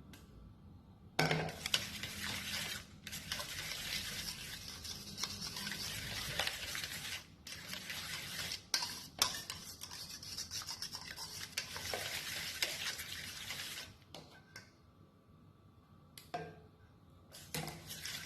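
A utensil stirring egg yolks into a thick cream cheese batter by hand in a mixing bowl, scraping against the bowl in steady strokes. It pauses briefly a few times and dies away near the end, with a couple of short strokes after.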